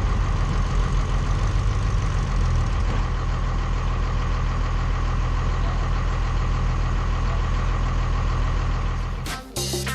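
Vehicle engine idling steadily. Background music cuts in near the end.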